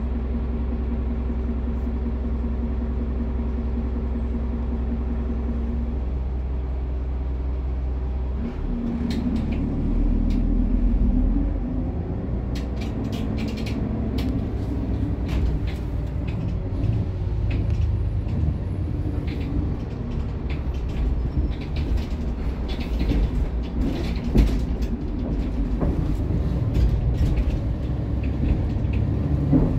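Cabin sound of a Kravtex-Kühne Credo Econell 12 bus: the engine idles steadily, then about eight seconds in the bus pulls away and accelerates. It runs on with the body and fittings rattling and knocking as it drives.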